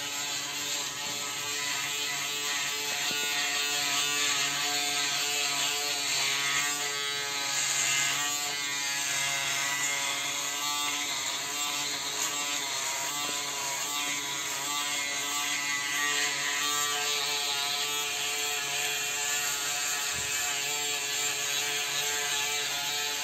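Braun Series 3 ProSkin 3010s electric foil shaver running as it is drawn over two-day stubble under the chin and on the neck: a steady buzz whose pitch wavers slightly.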